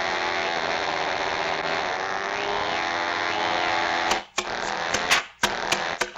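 Cartoon sound effects: a steady, dense buzzing for about four seconds, then it cuts off and a quick run of sharp clicks follows, several a second.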